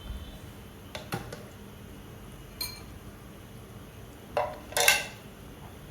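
Kitchen utensil knocking and clinking against cookware, a few separate strikes: light knocks about a second in, a short ringing clink in the middle, and two louder clanks near the end.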